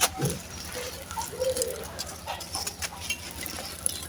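Dry, gritty sand-cement chunks crunching and crumbling in scattered sharp crackles, over a faint steady hum. A short, low, pitched call is heard about a second and a half in.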